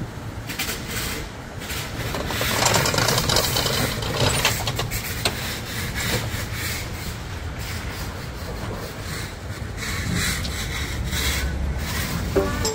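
Rough scraping and rubbing over a low, steady engine rumble, with scattered clicks and knocks.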